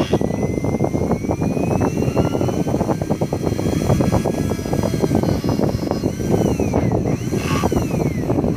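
RS-775 brushed DC motor spinning at high speed, a rough buzzing run with fine crackle and a high whine that slides up and down in pitch.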